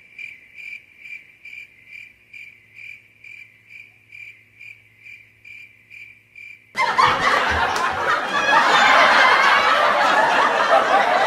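Cricket-chirping sound effect, an even high chirp about twice a second, used as the comic 'awkward silence' gag after a joke. About seven seconds in it cuts off abruptly and loud laughter takes over.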